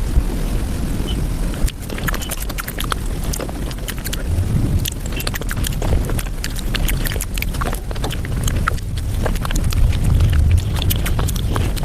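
Sped-up, close-miked eating sounds: rapid chewing, smacking and mouth clicks of desserts being eaten, over a low rumble.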